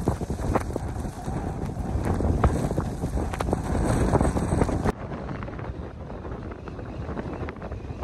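Blizzard wind buffeting the microphone in strong gusts, a heavy low rumble. About five seconds in it drops abruptly to a quieter, steadier wind rumble.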